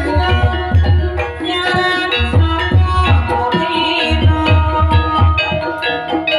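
Javanese gamelan music: many sustained ringing pitched notes over a hand-drum beat with repeated deep strokes.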